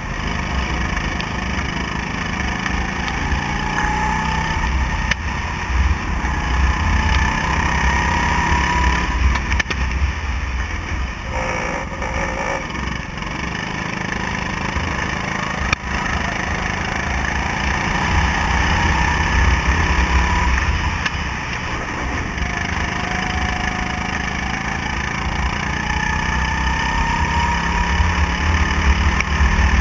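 Go-kart engine heard from on board, its pitch climbing several times as it accelerates and dropping back between, over a heavy low rumble.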